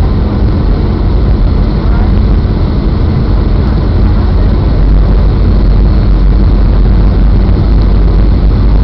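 Boeing 757 cabin noise from a window seat over the wing during the landing approach: a steady rush of airflow and jet-engine drone over a heavy low rumble, growing slightly louder about four seconds in.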